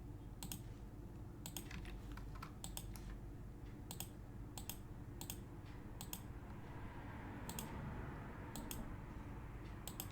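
Faint, scattered clicks of computer keys, in ones and close pairs with short pauses between them, over a low steady room hum.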